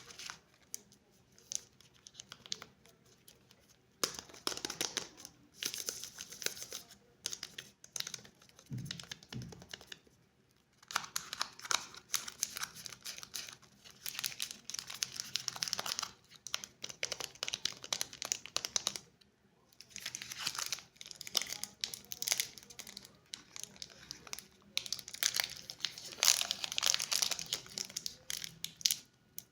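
Candy wrappers crinkling and tearing as sweets are unwrapped, in crackly bouts of a second or a few seconds with short pauses between.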